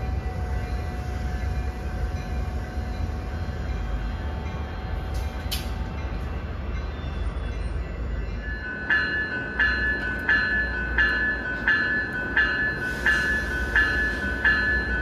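Coaster commuter train at a station platform: a steady low rumble with a sharp clank about five seconds in. From about nine seconds in, a bell rings at a steady pace, about three strokes every two seconds.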